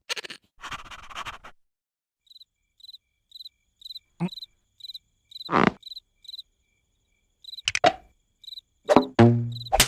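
Cricket chirping, short high chirps about twice a second, as a cartoon background effect. Several short sudden sound effects cut across it, and a brief low voiced sound comes near the end.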